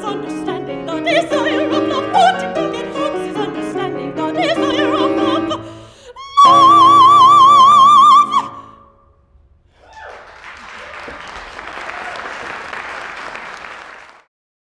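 Soprano singing with piano accompaniment, ending on a loud, high held note with wide vibrato. About two seconds after the note ends, audience applause starts and then cuts off abruptly near the end.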